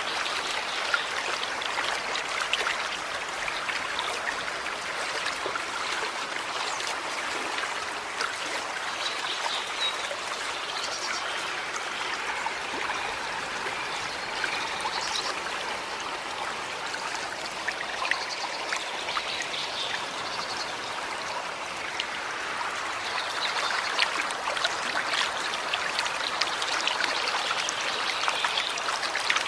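Small forest stream running steadily over stones, an even babble of water with fine trickling and splashing.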